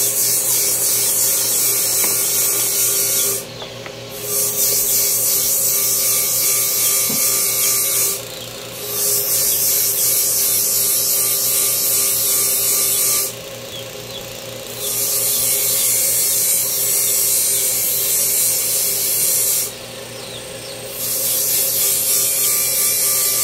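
An abrasive power tool hums steadily while a workpiece is pressed to it in five long passes of three to five seconds each. Each pass is a harsh, high grinding hiss.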